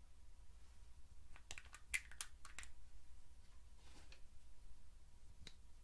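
Light clicks and taps from a small glass eyeshadow jar handled by fingernails: a quick run of about eight clicks a second and a half in, a soft brief rustle, then one more click near the end.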